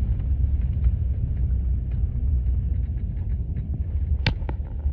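Steady low rumble of a vehicle driving on a snow-covered road, heard from inside the cab, with faint scattered ticks and one sharp click about four seconds in.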